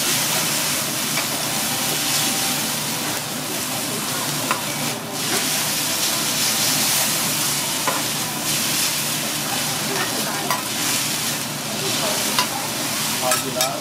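Noodles and shredded cabbage sizzling steadily on a hot teppanyaki steel griddle as they are stir-fried with metal spatulas, with a few sharp clicks of the spatulas striking the plate.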